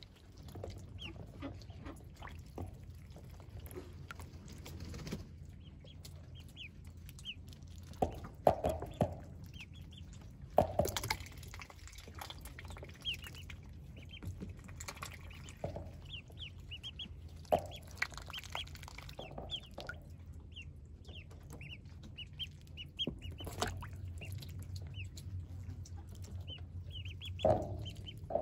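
Welsh Harlequin ducklings peeping in quick runs of short high-pitched chirps, with a few louder knocks and splashes from the water tub they are swimming in.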